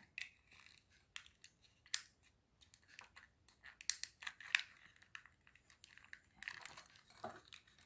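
Faint, scattered clicks and scrapes of a thin metal blade prying at the seam of a small black plastic touch-lamp control module. The case does not give: it is not meant to open, and is perhaps glued.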